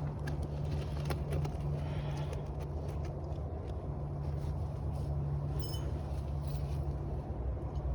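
Steady low hum with a few faint light clicks over it.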